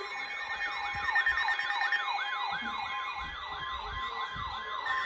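Electronic siren in a yelp pattern, its pitch sweeping up and down nearly three times a second, with steady tones beneath it.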